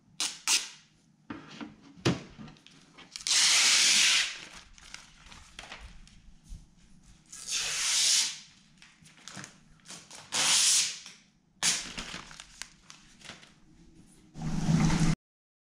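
Packaging being torn open: four tearing bursts of about a second each, a few seconds apart, with light knocks and rustling between them.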